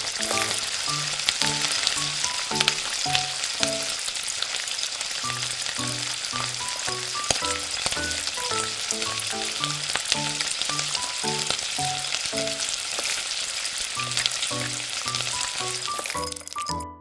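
Food frying in hot oil in a miniature pan: a steady sizzle with fine crackles, which cuts off suddenly near the end. Light background music plays underneath.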